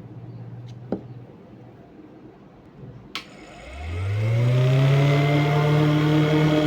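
12 V DC air cooler motor starting up: a sharp click near one second and another about three seconds in, then the motor spins up with a rising whine over about a second and runs steadily at speed.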